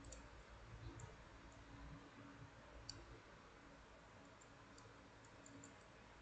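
Faint, scattered light clicks of metal wire puzzle pieces being handled, irregular and the loudest about three seconds in, over near silence.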